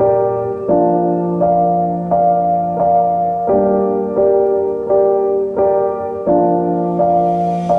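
Background music: gentle piano chords played at an even pace, with a new chord about every three-quarters of a second.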